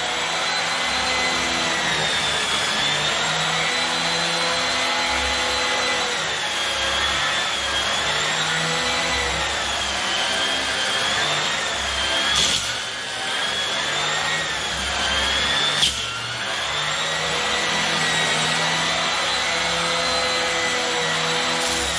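Vacuum cleaner running on carpet, its whine wavering gently in pitch, with two brief knocks a little past halfway.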